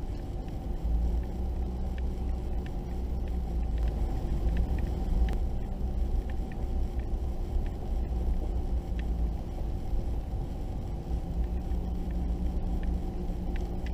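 Vehicle driving slowly on a gravel road: a steady low engine and road rumble, with scattered small ticks of gravel under the tyres.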